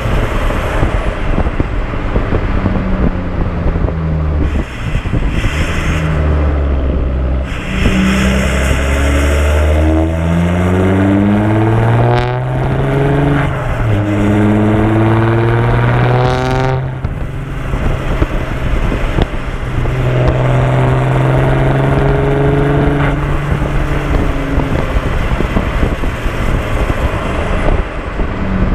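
Audi A5 3.0 TDI V6 diesel engine through an open exhaust, pulling under acceleration with its pitch climbing, a gear change about twelve seconds in, climbing again, then backing off and running steadier. Road and wind noise throughout.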